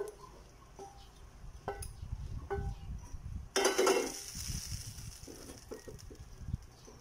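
A wooden spatula scrapes and knocks against a nonstick frying pan, giving a few ringing clinks. About three and a half seconds in, there is a loud, brief sizzling hiss as the hot pan goes back onto the burner, and then more light scraping.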